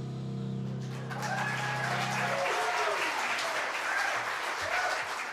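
Audience applauding and cheering at the end of a jazz tune, over the band's final low chord, which rings on and stops about two and a half seconds in.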